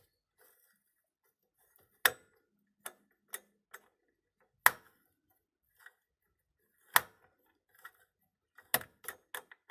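Screwdriver working the stiff spring-loaded retention screws of a desktop CPU heatsink: sharp, irregular clicks, the loudest about two, four and a half and seven seconds in, with a quick run of clicks near the end.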